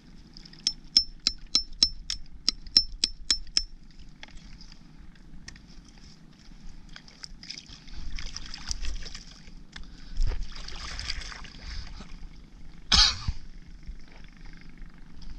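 A hammer strikes about a dozen quick, ringing blows, roughly four a second, working a rope-bound cluster of farmed oysters. Water then sloshes, and there is a loud splash about thirteen seconds in.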